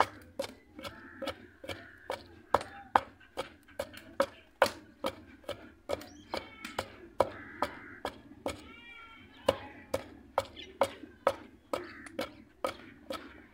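Wooden pestle pounding green chillies and coriander in a heavy stone mortar, grinding them into a chutney paste: a steady run of sharp strikes, about two a second.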